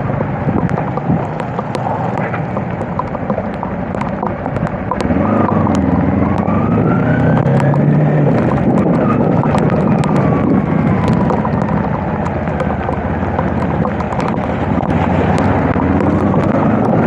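Kawasaki KLE250 motorcycle engine running under way in heavy rain, with rush and wind noise on the microphone and many sharp ticks. The engine grows louder about five seconds in as the bike picks up speed, and a faint whine rises and falls in the middle.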